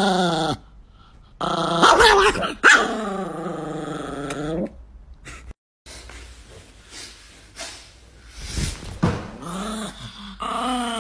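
A chihuahua growling and yowling in a string of drawn-out, pitch-bending vocal outbursts with short pauses between them, the longest lasting about two seconds.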